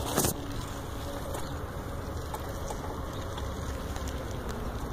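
Steady low rumble and hiss of wind and outdoor noise on a handheld phone's microphone, with a short rustle of handling right at the start.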